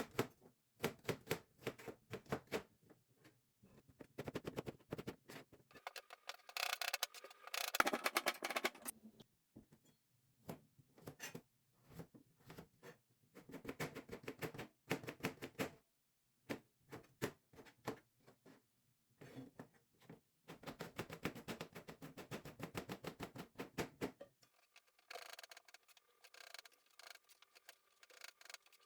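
Kitchen preparation sounds: runs of quick clicks and taps from utensils, in bursts a few seconds long with short pauses between.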